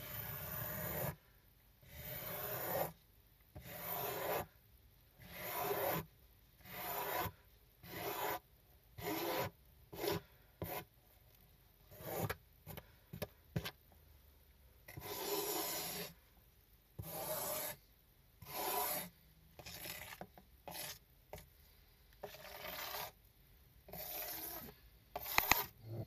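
A small hand squeegee dragged repeatedly across a wet, foam-covered miniature rug, about one stroke a second. Each stroke is a short scraping rasp as foam and dirty water are pushed off the pile.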